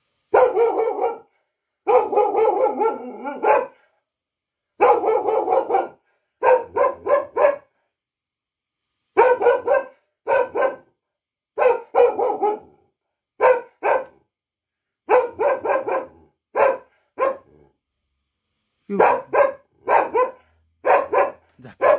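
A mixed-breed dog barking in bouts. The first few seconds hold longer, drawn-out barks that waver in pitch; after that come groups of short, sharp barks, two to four at a time, with pauses between them.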